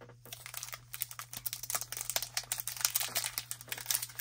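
Foil trading-card pack wrapper crinkling as it is handled and opened, a dense run of small crackles.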